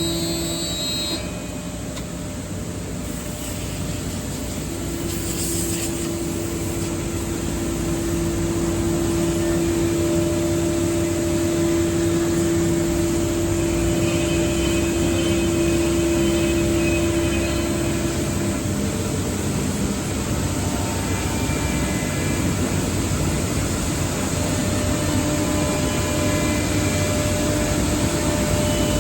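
5-axis CNC woodworking router running, a steady rushing machine noise with its spindle's constant-pitch tone standing out for much of the time, loudest through the middle stretch.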